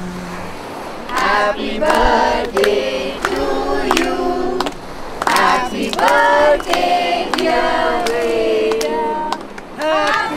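A group of voices singing together, with scattered hand claps.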